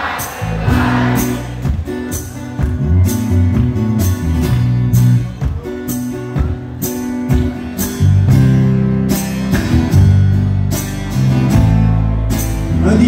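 Live band playing an instrumental passage: acoustic guitar and electric bass over a steady drum beat.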